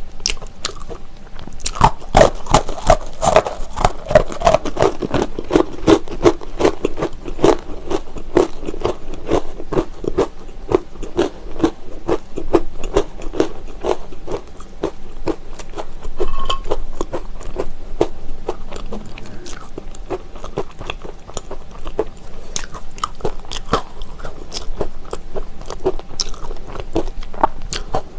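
Close-miked biting and crunching of hard honey wheat braided pretzel sticks. A bite about two seconds in sets off dense, loud crunching that thins into slower, steadier chewing.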